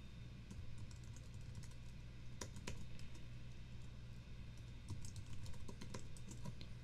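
Typing on a computer keyboard: a scattered run of light key clicks, with two louder keystrokes about two and a half seconds in, over a faint steady low hum.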